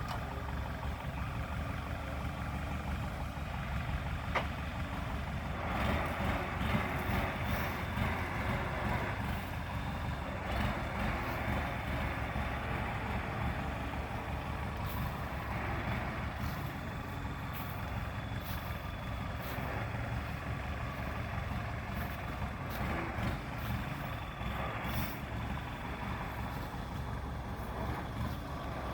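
Kubota farm machine's engine running steadily, with a mechanical clatter over the drone that grows louder for a few seconds at a time.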